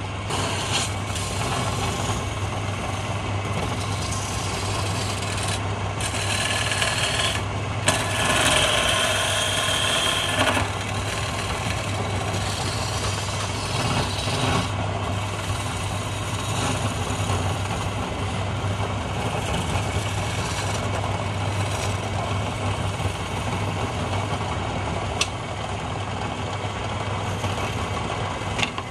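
Wood lathe running with a steady hum while a hand chisel cuts the spinning wooden blank, a continuous scraping hiss of the cut. About eight seconds in, a higher whine rings over it for a couple of seconds.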